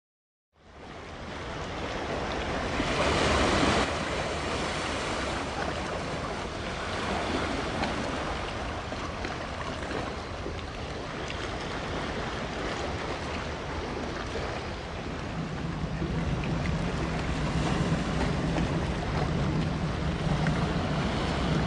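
Wind and water on the shore, with wind rushing on the microphone and a brief louder gust about three seconds in. From about fifteen seconds in a steady low engine hum joins it.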